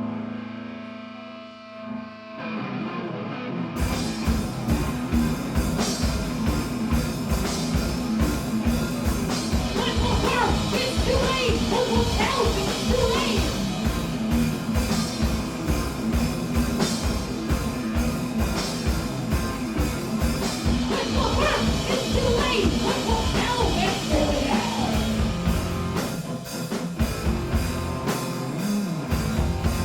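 Punk rock band playing live: a held guitar note, the band coming in about two seconds in, and the full band with a fast steady drum beat from about four seconds in, with singing over it in places.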